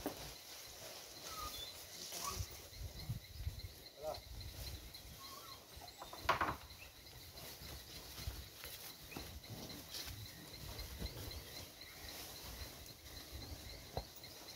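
Horses walking on grassy ground with scattered soft hoof thuds, under a steady, evenly repeating high chirping. One short loud call stands out about six seconds in.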